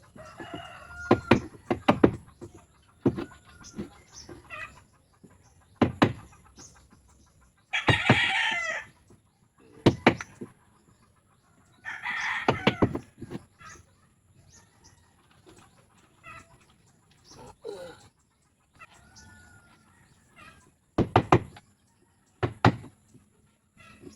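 A rooster crowing twice, about eight and twelve seconds in, with chickens clucking, amid irregular sharp knocks.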